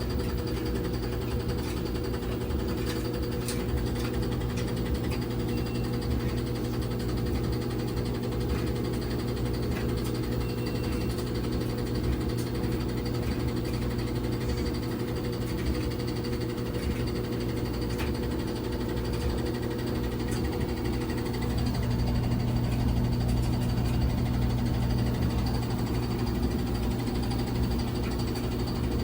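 LG WT1101CW top-load washing machine spinning, a steady motor hum that grows a little louder near the end. The owner says the machine shakes and the motor knocks.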